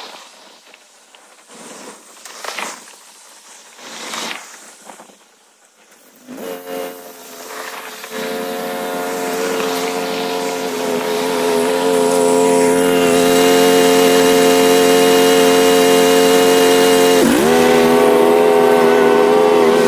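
Bradley 32-inch commercial stand-on mower engine running, starting a few seconds in and growing louder as the mower comes closer, then holding steady. Near the end its pitch drops sharply for a moment and recovers.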